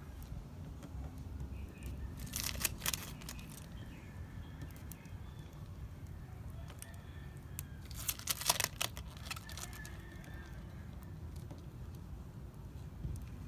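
Tape being peeled slowly off stick-on plastic letters on a truck tailgate: two spells of crackly tearing, a couple of seconds in and again about eight seconds in, over a low background rumble.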